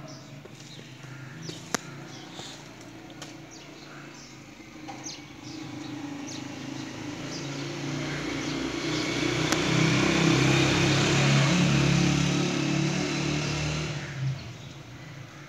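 A motor vehicle's engine drawing near and passing by: it grows louder over several seconds, is loudest about ten to twelve seconds in, then fades. A sharp click sounds a little under two seconds in.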